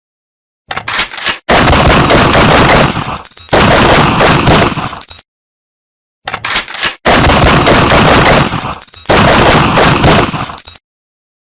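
Gunfire sound effect, heard twice in a row: a few quick clicks, then two long stretches of dense, rapid shots. Each sequence cuts off abruptly into dead silence.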